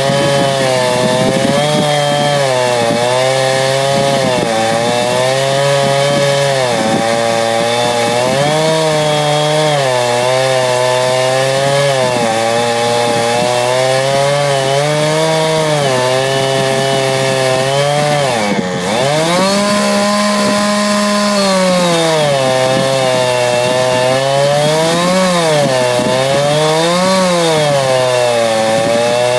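Chainsaw running under load as it rips lengthwise through a log, its engine pitch rising and falling as the cut bogs and recovers. About two-thirds of the way in the pitch dips briefly, then runs higher for a couple of seconds.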